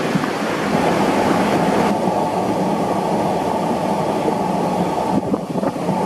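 Loud, steady rush of water cascading over rocks, close by, its higher hiss dropping away abruptly about two seconds in.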